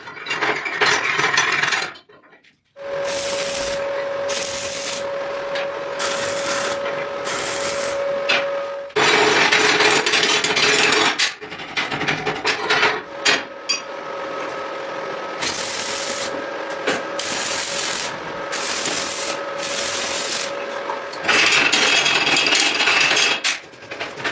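An abrasive power tool working metal: a steady motor tone under a loud rasping noise that swells in repeated passes, after a brief pause near the start.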